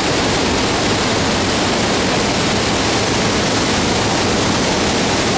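Waterfall rushing: a loud, steady, even noise of falling water.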